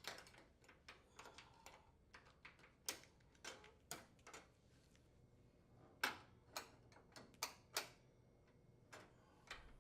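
Faint, irregular light clicks and taps of the metal hinge locks and door retaining brackets of a KitchenAid gas range's oven door being rotated and set into place, with a few sharper clicks near the middle.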